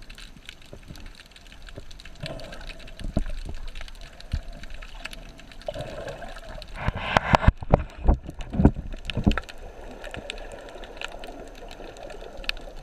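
Underwater sound as picked up by a submerged camera: a steady muffled wash of water with scattered sharp clicks and crackles, and a cluster of louder clicks and knocks about seven to nine and a half seconds in.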